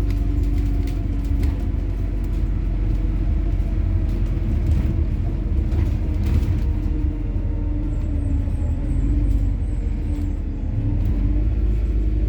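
MAZ-103.946 city bus running on methane (compressed natural gas), heard while riding: a steady low engine and road rumble, with scattered light clicks and rattles.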